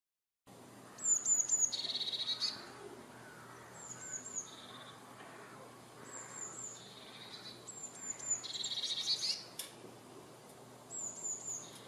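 Eurasian blue tit singing: about five phrases, each a few high, thin descending notes followed by a lower rapid trill. The song begins about half a second in.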